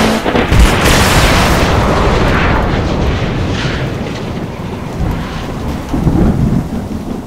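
A thunderclap-like crash as the song ends, followed by a long rumble that slowly fades, with another low rumble near the end.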